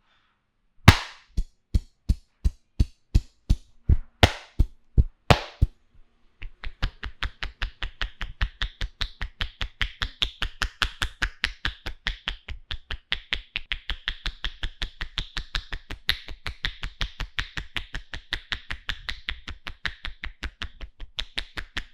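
A barber's hands striking rhythmically during an Indian head massage. First come slaps at about three a second with a few heavier ones, then from about six seconds in a quicker, even run of chopping taps at four to five a second.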